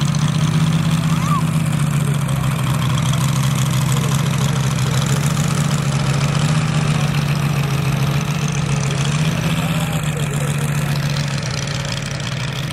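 Large-scale radio-controlled model airplane's piston engine running steadily at low throttle as the plane taxis, growing slightly fainter near the end as it moves away.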